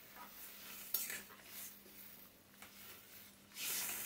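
Flat steel spatula scraping and clinking against a stainless steel kadai while stirring a watery curry, in short intermittent strokes, the longest and loudest scrape near the end.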